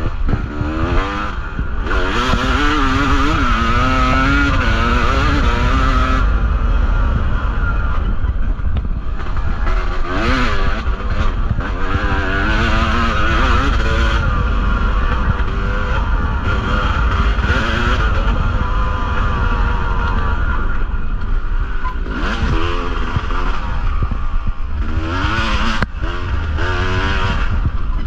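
Yamaha two-stroke dirt bike engine under way on a trail, its pitch rising and falling again and again as the throttle opens and closes, over a steady low rumble.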